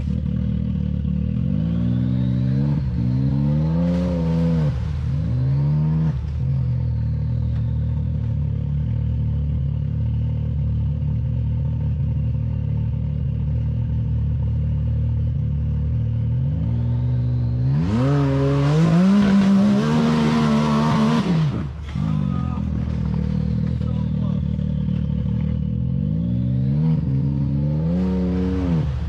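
Can-Am Maverick X3's turbocharged three-cylinder engine idling through an RPM drag pipe with muffler, blipped a few times in quick succession about two seconds in and again near the end. Around eighteen seconds in it is held at higher revs for a few seconds, with a rush of hiss over the exhaust note that cuts off abruptly when the throttle is released.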